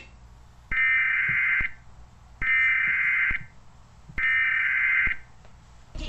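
Emergency Alert System header tones: three buzzing digital data bursts of about a second each, separated by short pauses, the coded SAME header that opens an EAS alert.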